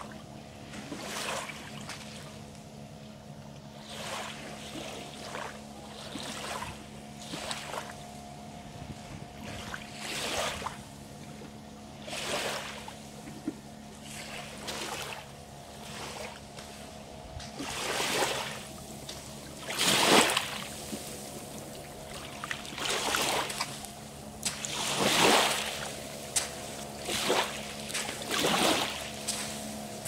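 Small waves lapping and washing onto the shoreline, one wash every second or two, with several larger washes in the second half. A faint steady hum runs underneath.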